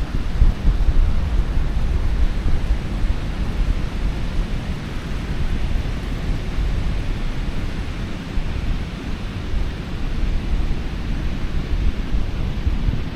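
Wind buffeting the microphone in uneven gusts of low rumble, over the steady wash of ocean surf.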